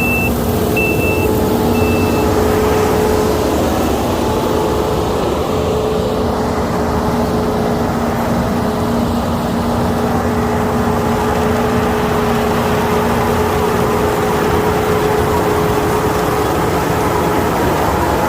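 Kukje KC5130 combine harvester running steadily with a constant engine and machinery drone. Three short high beeps sound in the first two seconds.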